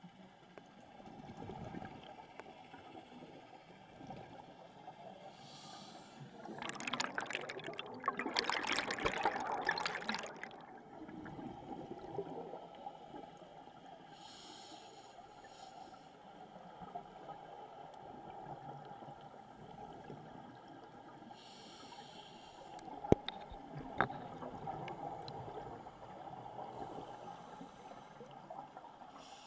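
Muffled underwater sound of scuba divers' regulators: a loud rush of exhaled bubbles for about three seconds near the start, softer breathing hisses every several seconds, and two sharp clicks about a second apart past the middle.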